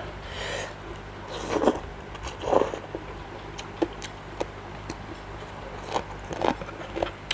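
A person eating spicy seafood papaya salad close to the microphone: chewing with irregular wet mouth smacks and clicks, a few louder than the rest, over a low steady hum.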